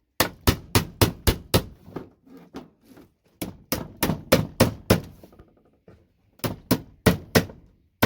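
Hammer blows on a metal tool wedged under a VGA connector, driving it off a circuit board: three quick runs of strikes, about three to four a second, with short pauses between.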